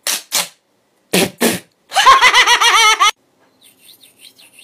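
Masking tape pulled off its roll in short raspy rips, two pairs of them, followed by a high wavering squeal lasting about a second. Faint light clicks of two metal spoons near the end.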